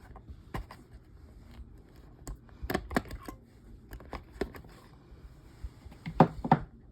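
Plastic clicks and knocks of D-cell batteries being handled and pulled out of a small battery-operated box fan's battery pack. The clicks come irregularly, with a cluster of louder knocks about six seconds in.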